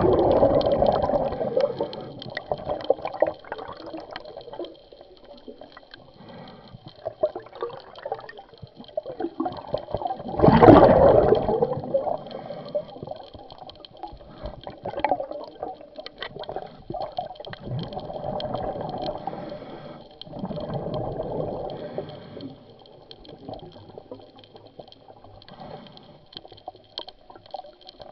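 Scuba diver's exhaled bubbles gurgling and rushing underwater, in surges a few seconds long. The loudest surges come right at the start and about ten seconds in, with quieter ones between.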